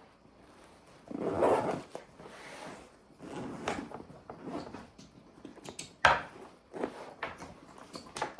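Small gear being handled and rummaged through: a rustling scrape about a second in, more brief rustles and light knocks, and a sharp click about six seconds in.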